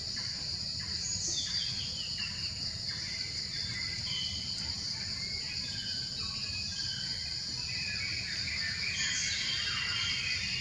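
Steady high-pitched insect chorus, like crickets or cicadas, with birds chirping in short falling notes over it, over a low steady rumble.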